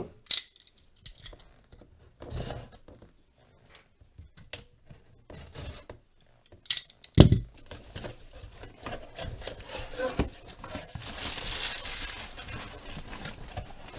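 Cardboard shipping box being handled and opened: scattered light scrapes and taps, a sharp knock about seven seconds in, then steady rustling and tearing of cardboard and packing tape as the flaps are pulled open.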